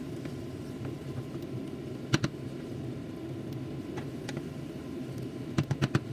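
Wooden spatula stirring vegetable curry in a non-stick frying pan, knocking against the pan twice about two seconds in and four times in quick succession near the end, over a steady low rumble.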